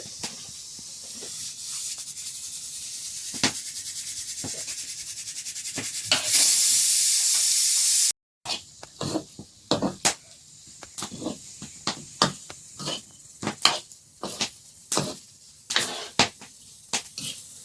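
A high sizzling hiss that grows louder and is loudest for about two seconds before cutting off abruptly. After a short break comes a run of irregular sharp clicks and knocks.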